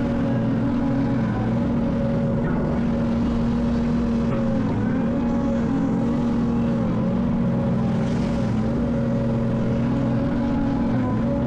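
Excavator's diesel engine running steadily at working revs, holding an even pitch with only slight wavers.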